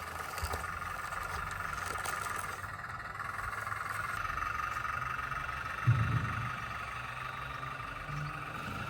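Small electric motor and gearbox of a radio-controlled model construction vehicle whining steadily, with one low thump about six seconds in.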